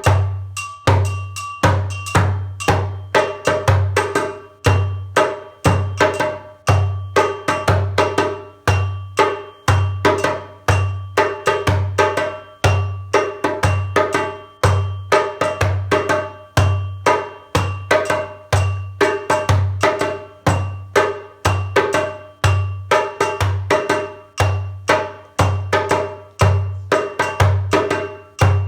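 Hand drum played solo in a steady African rhythm: quick sharp slaps and tones, with a deep bass stroke about once a second.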